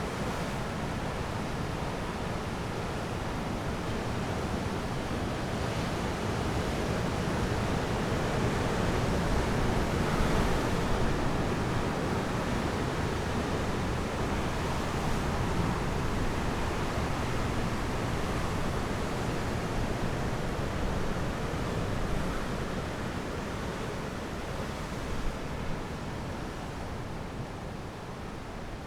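Sea waves and surf with wind, a steady rushing noise that swells to its loudest about ten seconds in and then eases off.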